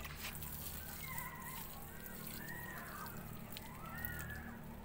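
Water poured from a tin can splashing onto soil around a chili plant, with scattered drips. Several short tones that rise and fall sound over it.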